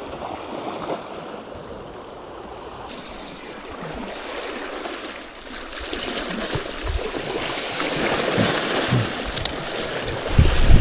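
Small sea waves washing and splashing over shoreline rocks, louder from about halfway through.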